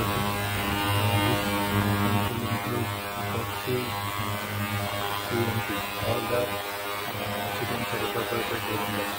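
Ultrasonic cleaning bath running with a steady electrical buzz and low hum, a little louder in the first few seconds, as it sonicates a flask of carbon nanotube and epoxy resin mixture to disperse the nanotubes.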